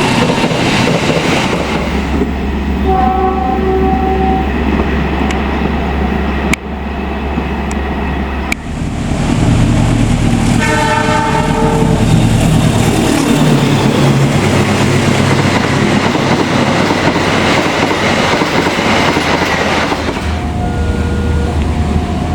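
Indonesian diesel locomotives passing with a heavy running noise and wheels on the rails, sounding their horns three times: a few seconds in, around eleven seconds, and near the end. These are the semboyan 35 horn signals. The sound changes abruptly twice, near seven and eight and a half seconds, where one clip gives way to the next.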